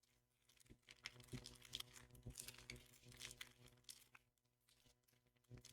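Foil Pokémon card booster pack wrapper crinkling and being torn open, in faint irregular crackles with a short lull near the end.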